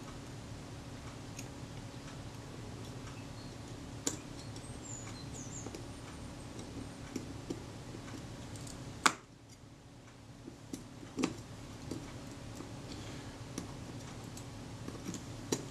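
Small, sharp metallic clicks and taps of steel tweezers and a tiny return spring on the film-advance mechanism of a Kodak Retina IIIS camera as the spring is worked into place, with one louder click about nine seconds in. A faint steady hum runs underneath.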